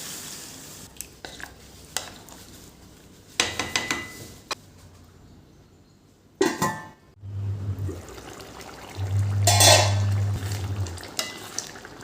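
Kitchen utensils and cookware clinking and knocking in a few separate strokes, with a louder clatter about midway and another near the end. A low hum comes and goes in the second half.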